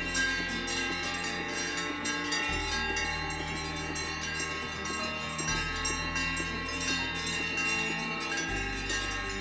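Background music: sustained chords with ringing, bell-like tones over a low bass note that changes about every three seconds.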